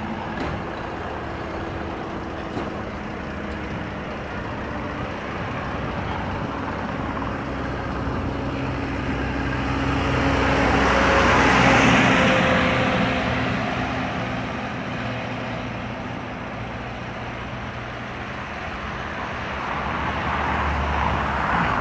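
Road traffic going past, with engines running. One vehicle passes close about halfway through, its sound rising and then falling away, and another comes up near the end.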